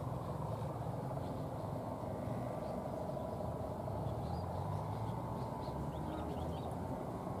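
Diesel locomotive engine running with a steady low rumble as a passenger train approaches at low speed, with faint bird chirps in the middle.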